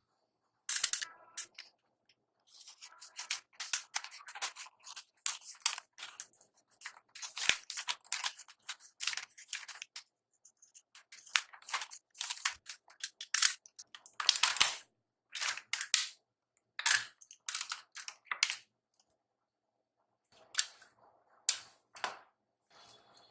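Plastic toy parts being handled: many sharp clicks, snaps and rattles in irregular clusters, with a short pause before the last few.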